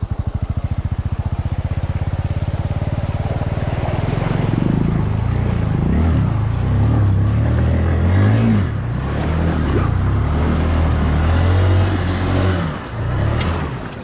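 Bajaj Boxer 150 motorcycle's single-cylinder four-stroke engine running with an even putter, then revving hard and unevenly under load from about four seconds in as it is ridden into a deep muddy forest puddle; the engine note drops away near the end as the bike bogs down in the water.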